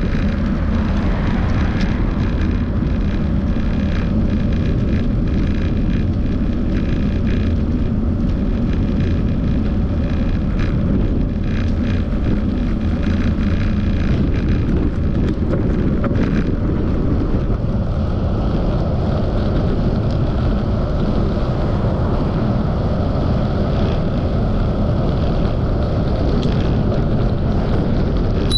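Steady wind rushing over the microphone of a camera on a moving bicycle, with road noise underneath.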